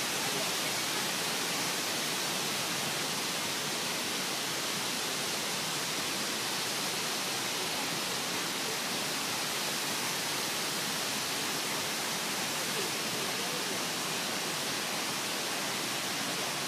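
Steady, unbroken rush of a mountain stream.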